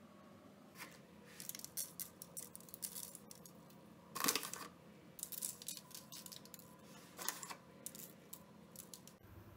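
Sesame seeds sprinkled by hand onto egg-washed buns on a parchment-lined baking tray: scattered light pattering and rustling in short bursts, loudest about four seconds in.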